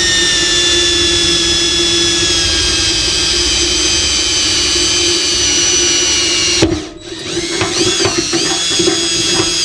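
Cordless drill running under load as it bores a hole through a metal forge burner tube, its whine slowly dropping in pitch. About seven seconds in it briefly lets off, then runs again with the speed dipping and rising before stopping at the end.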